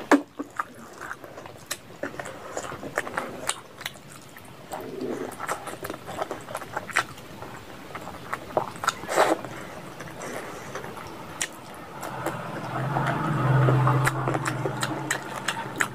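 Close-miked wet chewing and lip-smacking of a mouthful of curry and rice, with many sharp mouth clicks. A low steady hum swells and fades about three-quarters of the way through.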